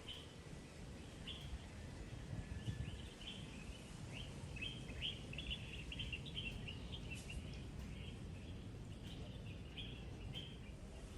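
Small birds chirping in the trees: a busy run of short, high chirps, thickest in the middle stretch, over a steady low background rumble.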